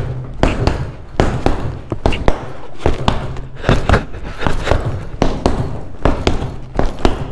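A run of punches landing on a hanging punching bag: quick, heavy thuds in irregular combinations, about three a second.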